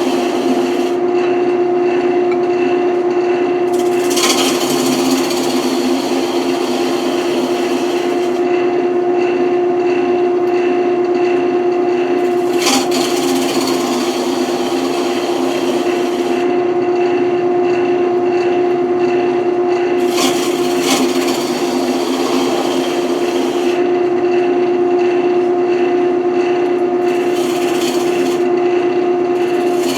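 Wood lathe running with a steady hum while a square-tipped turning tool scrapes the spinning wood, in several stretches of hissing, rasping cuts a few seconds each.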